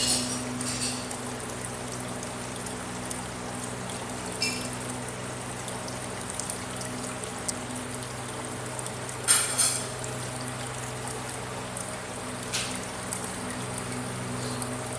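Aquarium water trickling and splashing steadily over a low electric hum from the tank's pump. A short sharp clatter about four and a half seconds in, and a louder one about nine and a half seconds in.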